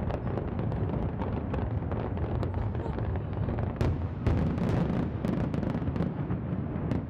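Fireworks display: a dense, continuous barrage of booming bursts, with a quick string of sharp cracks from about four seconds in.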